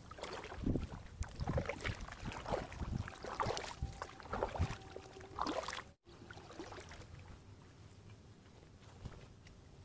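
Kayak paddling: irregular paddle splashes and knocks against a homemade styrofoam kayak for about six seconds. The sound then cuts off abruptly and gives way to faint, sparse handling sounds.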